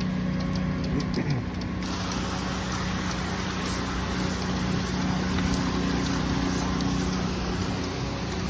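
Small gas engine of a soft-wash roof pump running steadily. About two seconds in, the hiss of the sodium hypochlorite mix spraying out of the hose joins it and keeps on.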